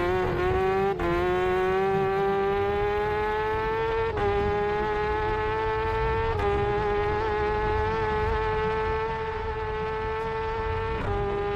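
Race motorcycle engine at high revs heard on board, a steady high-pitched note that climbs slowly under acceleration. It breaks briefly and drops in pitch at gear changes about one, four, six and eleven seconds in.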